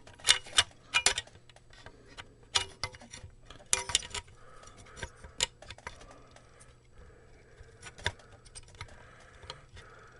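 Irregular clicks, knocks and light rattles of parts being handled as an amplifier's circuit board is worked back into its housing, the sharpest knocks in the first second and a few more scattered after.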